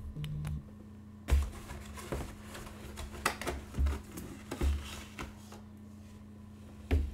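Cardboard packaging and paper being handled at a table: rustling with about seven irregular soft knocks, the loudest just after a second in and near the end, over a steady low hum.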